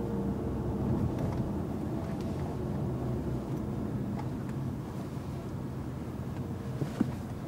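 Steady engine and road noise heard inside a moving Mercedes-Benz car's cabin at low speed, with one brief click near the end.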